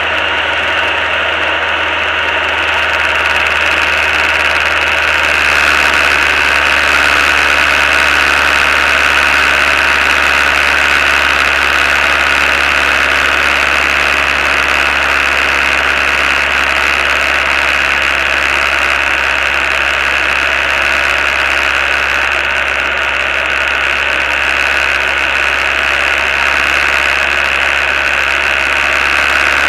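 Diamond DA20 light aircraft's piston engine and propeller running at steady cruise power, heard from inside the cockpit as a loud, even drone with a constant high whine over a low hum.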